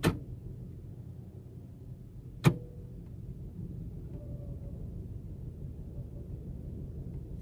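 Toyota Camry engine running with a low, uneven rumble, the sign of a cylinder misfire. Two sharp clicks come about two and a half seconds apart.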